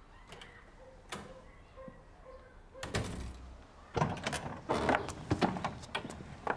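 Knocks and thuds: a single thud about three seconds in, then a quick run of sharp clicks and knocks over the last couple of seconds.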